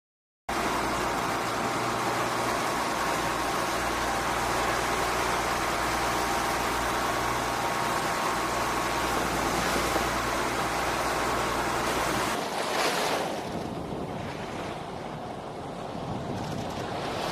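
Wind and water noise from a boat under way at sea, over the low steady hum of its motor, starting suddenly half a second in. About twelve seconds in it cuts to a quieter, duller stretch of wind and waves.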